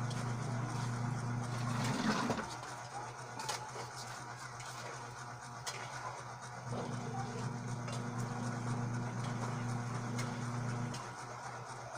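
A steady low machine hum that stops about two seconds in, starts again just before seven seconds and stops about eleven seconds in, with a few faint clicks in between.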